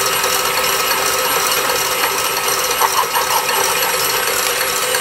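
Electric stand mixer running steadily, its wire whisk beating egg whites in a stainless steel bowl and ticking against the metal: the egg whites being whipped toward stiff peaks for meringue.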